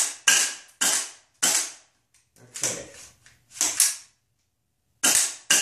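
Gas-blowback airsoft M4 firing about nine semi-automatic shots at an uneven pace. Each shot is a sharp crack of the gas valve and cycling bolt carrier, with a short echo of the small room after it.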